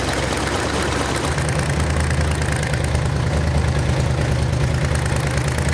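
Freshly rebuilt engine running steadily, its note firming up about a second in, with exhaust leaking past cheap stamped-steel header gaskets.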